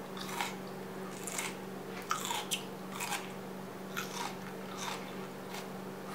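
A person chewing a mouthful of raw red onion, with short crisp crunches about every half second to second.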